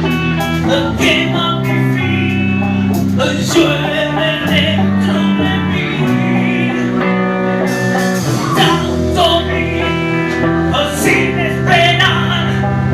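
Live rock band playing, with guitar prominent over sustained bass notes and regular drum hits.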